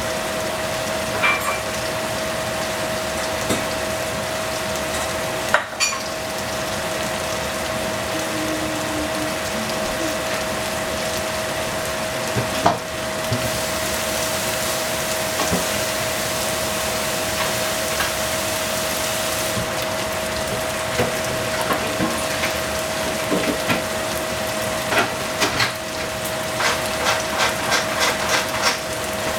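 Mushrooms and sauce simmering in a frying pan: a steady sizzling hiss with scattered small pops that come thick and fast near the end. A steady hum runs underneath.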